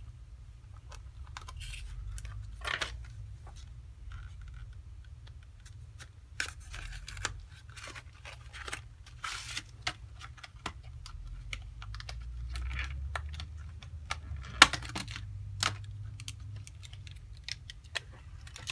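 Irregular light clicks, taps and rustles of small objects being handled on a workbench, with a sharper click about two thirds of the way through, over a steady low hum.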